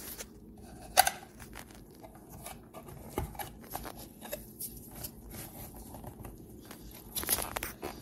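Hands tugging and working a rubber piece off the base of a removed car side mirror: scattered small clicks, rubs and plastic handling noises, with a sharp click about a second in and a short rustling scrape near the end. The rubber piece is stuck on firmly.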